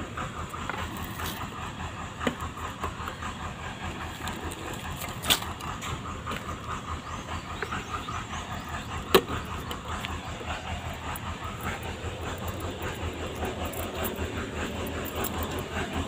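Lonking road roller's diesel engine idling steadily, with a few sharp clicks over it, the loudest about nine seconds in.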